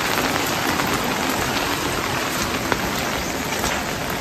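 Steady rain falling, with a few sharper ticks of single drops landing close by.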